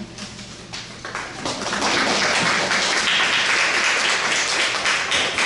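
Audience applauding, the clapping building up about a second in and going on steadily.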